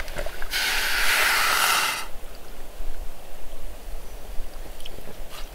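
Water pouring into a cooking pot of dehydrated spaghetti as a steady hiss for about a second and a half, then stopping sharply.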